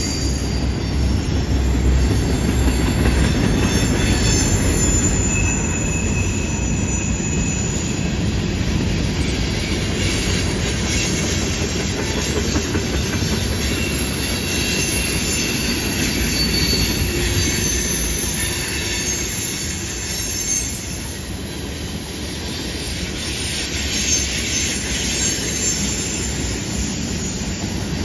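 Freight cars of a mixed train rolling past on a curve: a steady low rumble of steel wheels on rail, with short high-pitched wheel squeals coming and going.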